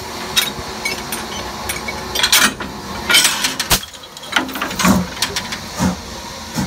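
Steam locomotive No. 90, a 2-10-0 Decapod, standing and hissing, with several sharp metallic clanks and knocks.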